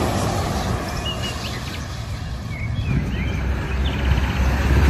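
Tractor-trailer truck's diesel engine running at low speed as the rig moves slowly past, a low rumble that grows louder near the end. Birds chirp several times over it, with a brief rapid trill.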